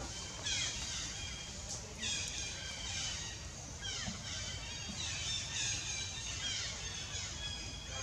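High-pitched animal calls repeating every second or so, each sliding down in pitch, over a low steady background hum.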